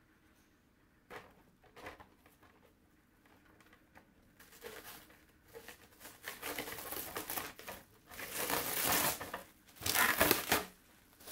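Packaging being handled, crinkling and rustling. A few light clicks come first, then the handling grows louder, loudest in two bursts near the end.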